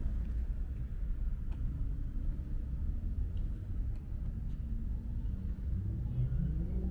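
Wind buffeting the microphone, a steady low rumble that wavers in strength. A short rising pitched sound comes in near the end.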